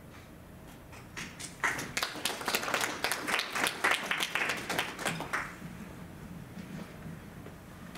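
Audience applauding: a short round of clapping that starts about a second in, grows quickly and dies away after a few seconds.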